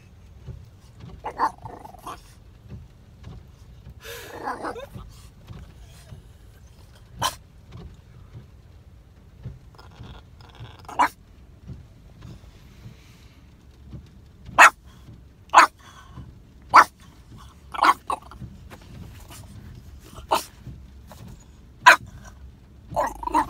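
French bulldog making a demand bark for food: short sharp single barks, scattered at first, then about one a second for several seconds in the second half. About four seconds in there is a longer, rougher grumble.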